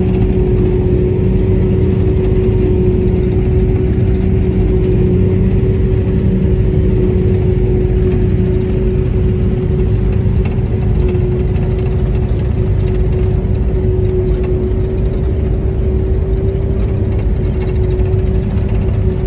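Silage harvesting machinery running steadily: a constant engine drone with a steady, unchanging whine on top.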